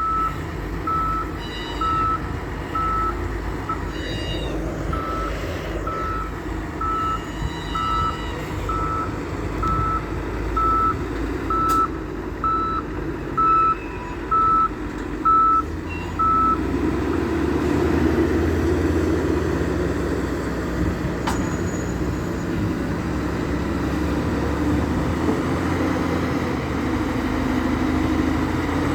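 A heavy construction machine's reversing alarm beeping about once a second over a diesel engine running. The beeping stops a little past halfway, and the engine rumble then grows louder.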